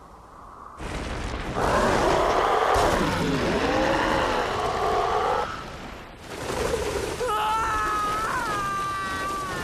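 Animated action sound effects: a rushing whoosh with a long wavering screech from a giant bird, then a boy's yell as he kicks, its pitch gliding down near the end.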